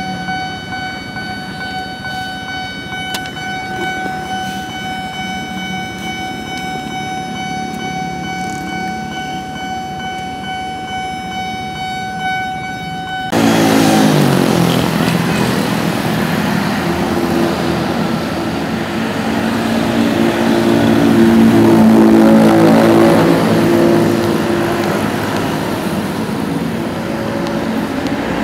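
A single steady horn-like tone with overtones, held unchanged for about 13 seconds and then cut off abruptly. After it comes louder vehicle engine and road noise, with low engine tones that rise and shift.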